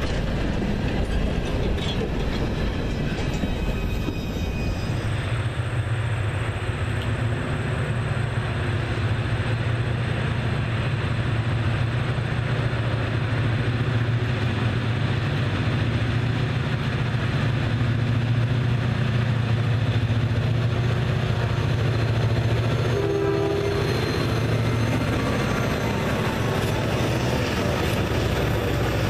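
Freight cars rolling past on the rails. About five seconds in, a Reading and Northern diesel locomotive approaches and passes close by, its engine running with a steady deep drone.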